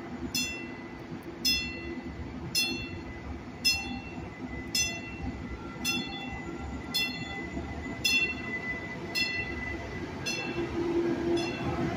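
A bell ringing steadily about once a second over the low hum of a Stadler FLIRT Arrow diesel multiple unit train at the platform.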